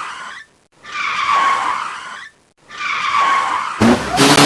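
Tyre screech sound effect played three times in a row, each screech about a second and a half long with a high squeal that sags slightly before cutting off. Near the end a car engine revs.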